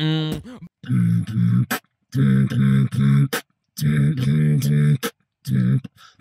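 Beatboxing into a handheld microphone: short phrases of low, humming throat bass punctuated by sharp spit-snare hits, broken by brief dead silences. It is an attempt to copy another beatboxer's throat-bass and spit-snare beat.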